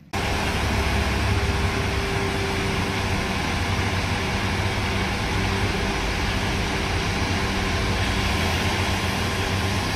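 Diesel engine of a Komatsu HM400 articulated dump truck running steadily, a deep even hum.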